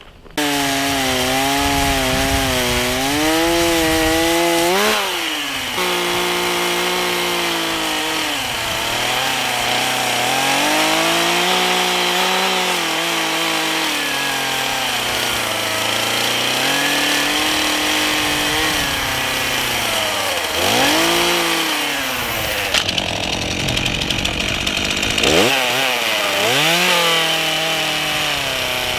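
Stihl chainsaw cutting a notch into a log, the engine note dropping as the chain bogs into the wood and rising again as it revs free, over and over.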